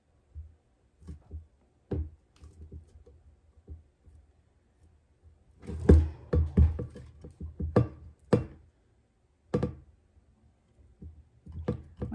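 Handling noises from a stainless steel tumbler with a plastic lid being turned and set against a tabletop while vinyl on transfer paper is pressed onto it: scattered knocks and clicks with some rustling, busiest from about six to ten seconds in.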